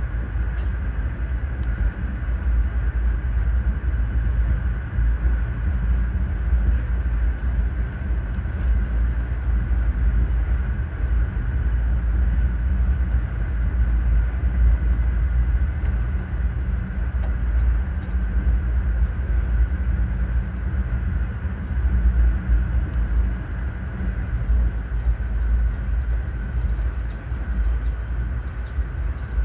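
Train running at a steady speed: a constant low rumble from the wheels on the rails, with a steady high hum over it and a few faint ticks near the end.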